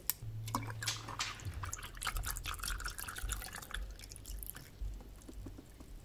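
Milk being poured into a glass of iced coffee: a faint trickle of liquid with scattered small drips and ticks.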